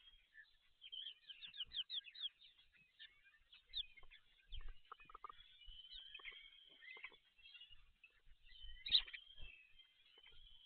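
Birds chirping and calling: a quick run of short falling chirps about a second in, scattered calls after, and a louder call about nine seconds in, with a few soft low thumps.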